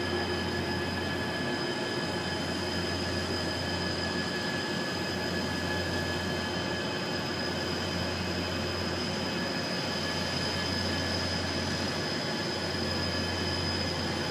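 Boat engine running steadily: a constant drone with several steady high tones over it.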